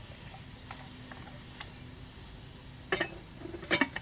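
A few sharp clinks and knocks of cooking utensils and lids against cast-iron Dutch ovens, the loudest pair near the end, over a steady high-pitched hiss.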